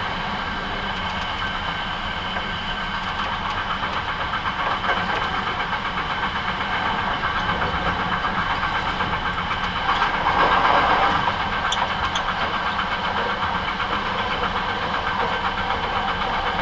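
Hankyu 9300 series electric train running along the line, heard from on board: a steady low rumble of wheels on rail with several steady high whining tones over it, swelling louder for about a second around ten seconds in.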